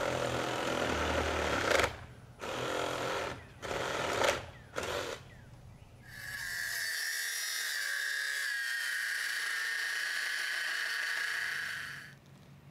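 Power drill driving screws into a wooden board in a few short bursts, then running steadily for about six seconds as a high whine.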